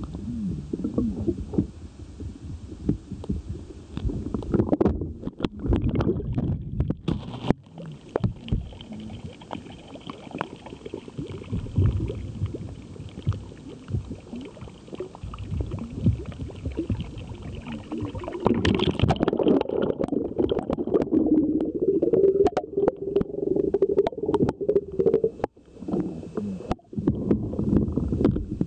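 Muffled low rumbling and sloshing of water picked up by an underwater camera, with many sharp clicks and knocks.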